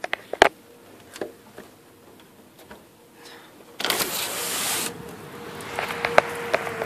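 Storm rain and wind heard at a window screen: sharp clicks and knocks in the first second and a half, a sudden rush of noise lasting about a second, then steady rain and wind noise that grows louder, with more clicks near the end. A faint steady hum runs underneath.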